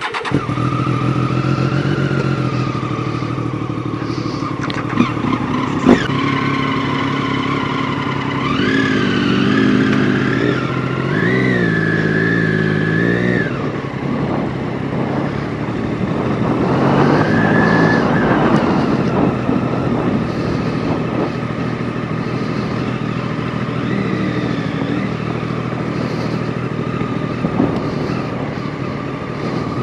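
Motorcycle engine running on the move, its pitch rising and falling a few times as the revs climb and drop through the gears.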